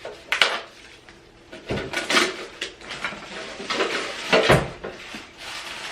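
Handling clatter from a new mini refrigerator and the loose parts inside it: a few sharp knocks and rattles with rustling between them, the loudest knock a little past four seconds in.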